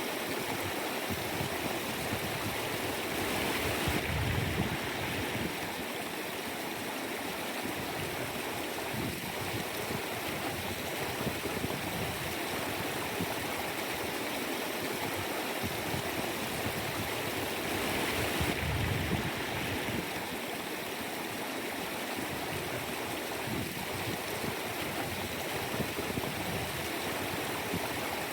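Mountain stream flowing over rocks: a steady rush of water that swells briefly twice, about four seconds in and again near nineteen seconds.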